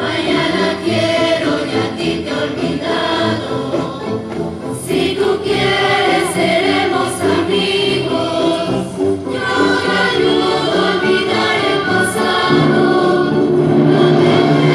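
Symphony orchestra and choir performing live, the choir singing sustained notes over the orchestra and the music growing louder toward the end.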